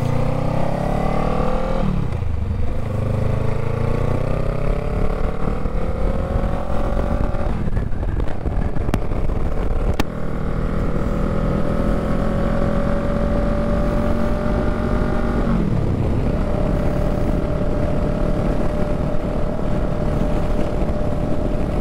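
Honda Rebel 500's parallel-twin engine pulling away under acceleration. Its pitch climbs in each gear and drops with three upshifts over the first fifteen seconds or so, then holds level at a steady cruise, with wind rushing over the microphone.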